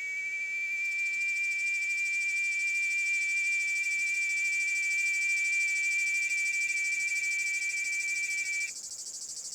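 A cicada buzzing loudly in a steady, high drone that cuts off near the end, leaving a softer, pulsing high insect chirr underneath.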